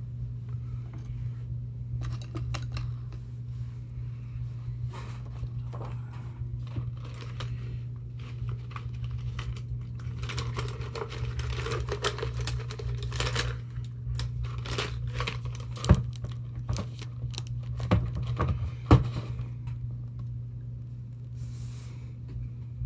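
Light clicks, taps and rustles of a paintbrush and painting supplies being handled on a tabletop, over a steady low hum, with three sharper knocks in the last third.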